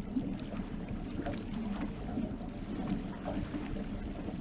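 Steady low hum of the boat's outboard motor running slowly, with wind buffeting the microphone and water splashing as a hooked shark is held alongside the hull.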